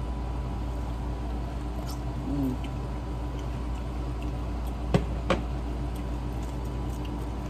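Metal spoon stirring coleslaw in a plastic tub, with small scratchy scraping and two sharp clicks of the spoon against the tub about five seconds in, over a steady low hum.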